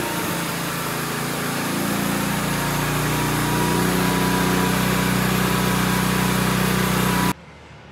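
Honda EG4500CL portable generator's single-cylinder engine running steadily, its pitch rising a little about two to three seconds in. The sound cuts off suddenly near the end.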